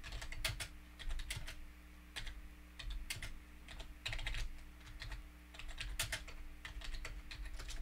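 Computer keyboard typing: short, irregular key clicks in uneven runs as a command is typed, over a faint steady hum.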